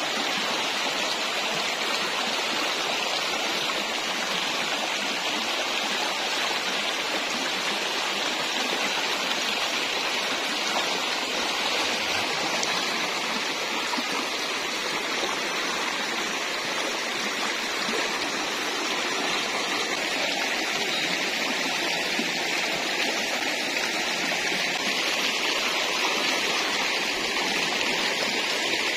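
Shallow stream rushing steadily over rocks and around a wader's legs: a continuous even water noise.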